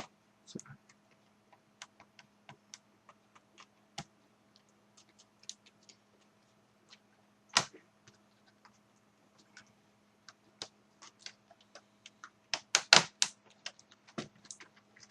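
Small sharp clicks and taps of plastic laptop parts being handled during disassembly, scattered and irregular, with one louder click about halfway and a quick run of louder clicks near the end, over a faint steady hum.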